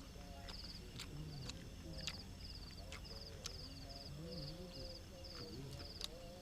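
Crickets chirping in short high pulsed trills, about two a second and evenly repeated, with a few sharp clicks and faint distant voices underneath.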